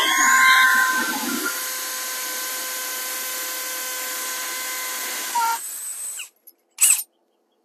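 Cordless drill running as it drives a screw for a cable strap: a steady motor whine, loudest in the first second, that stops about five and a half seconds in. A short burst of noise follows about a second later.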